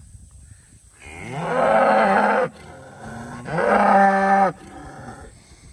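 A white-faced cow mooing twice: two long, loud calls about a second apart, each held at a steady pitch.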